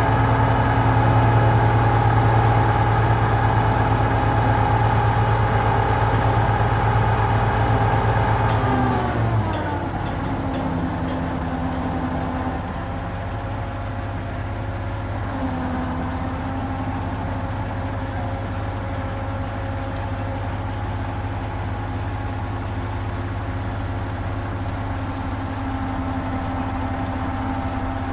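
Truck crane's diesel engine running steadily at raised revs. About nine seconds in its pitch falls and it settles to a lower idle, with a faint tone coming and going over it.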